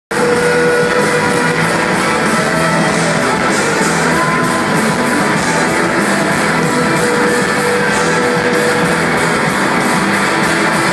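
Live rock band with an electric guitar playing a solo of long held notes over the band.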